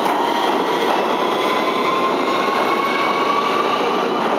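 New York City Subway Q train pulling out of the station and running off down the tunnel: a steady, loud rumble of steel wheels on the rails, with a thin whine that rises slowly in pitch as it gathers speed.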